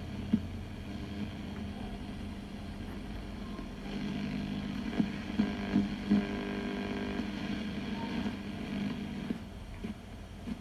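Sony CFS-1030S radio cassette player on the AM (medium wave) band giving out a steady hum and static while the tuning knob is turned, with no station coming in. The hum grows louder about four seconds in, with a few sharp crackles around five to six seconds, and falls back near the end.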